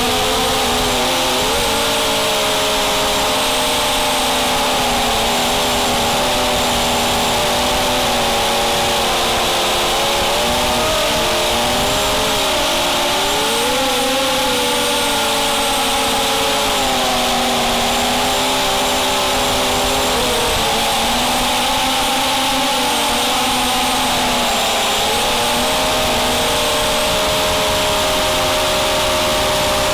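250-size racing quadcopter's brushless motors and propellers whining, heard from the onboard camera, their pitch rising and falling as the throttle changes, over a steady rush of prop wash and wind.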